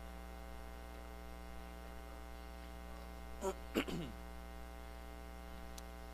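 Steady electrical mains hum with many even overtones. About three and a half seconds in comes a brief voice sound, falling in pitch.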